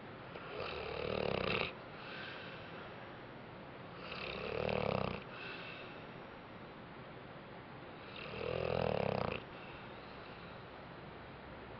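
Dog snoring in its sleep: three loud snores about four seconds apart, each swelling and then cutting off sharply, with softer breaths in between.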